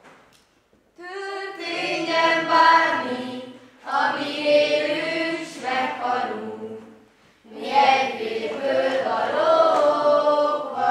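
Group of children singing together in unison without accompaniment, in three phrases with short pauses for breath between them; the first begins about a second in.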